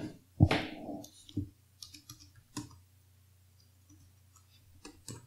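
A handful of separate computer keyboard and mouse clicks as a number is deleted and retyped in an input field. A brief, somewhat louder sound comes about half a second in.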